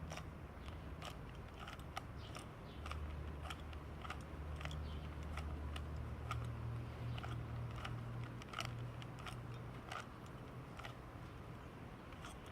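Plastic Rubik's Cube being twisted by hand: irregular clicks and clacks of its layers turning, a couple a second, over a low steady hum.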